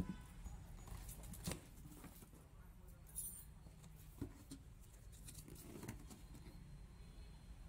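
Faint handling of a cardboard box and its plastic packing: flaps being opened and plastic sheeting rustled, with a few light taps and rustles spread through.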